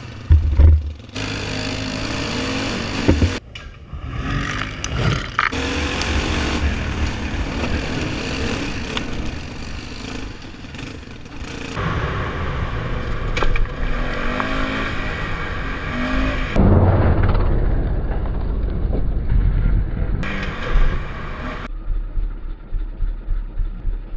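Polaris Sportsman 570 ATV engine running and revving on a rough dirt trail, with knocks and scrapes from the ride. The sound changes abruptly a few times where shots are cut together.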